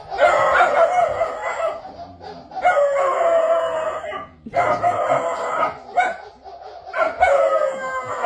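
Small dog howling: four long, wavering howls in a row with short breaks between them.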